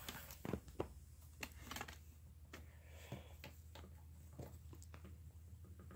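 Paracord being pulled through and worked by hand: faint rustling and small clicks of the cord sliding, strongest in the first couple of seconds, over a steady low hum.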